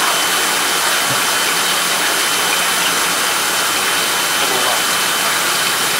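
Steady rushing noise, strongest in the upper range, with a thin steady high whistle.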